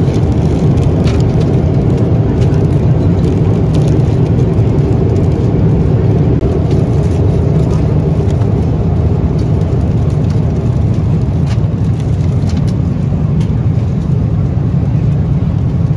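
Steady, loud drone of a Boeing 777-300ER's economy cabin in flight: engine and airflow noise, heaviest in the low end, with a few faint clicks.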